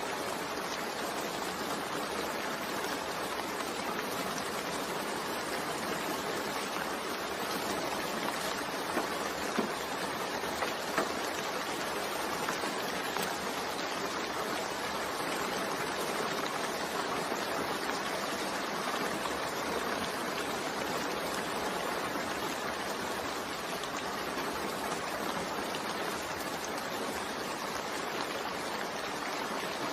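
Steady rain falling, an even, unbroken noise, with a few slightly louder patters about a third of the way in.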